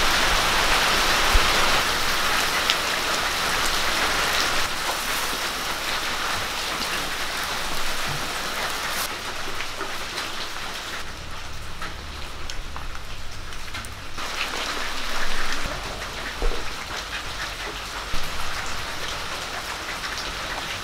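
Sardines frying in hot oil in a clay pan, a steady dense sizzle and crackle. It is strongest at the start, drops away for a few seconds about halfway through, then returns more thinly.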